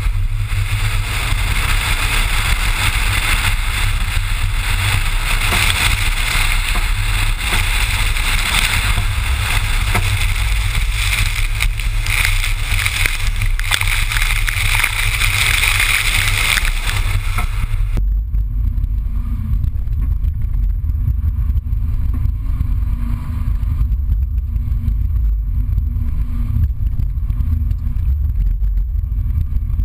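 A 2011 Subaru WRX driven hard on wet pavement: heavy wind buffeting on the microphone with tyre spray hissing and road noise, heard from outside the car. About two-thirds of the way through, the sound changes abruptly to the duller, muffled rumble of the engine and road heard inside the cabin.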